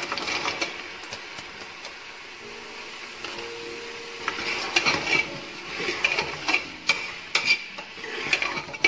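Sliced marrow dropped into hot oil and masala in an aluminium pressure cooker, sizzling. From about four seconds in, a steel ladle stirs the slices, scraping and clinking against the pot.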